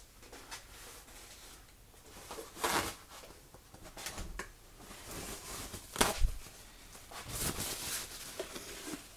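A cloth rubbing and rustling at glass canning jars, the rims being wiped with vinegar to clear off the fat before the lids go on. There is a single sharp knock about six seconds in.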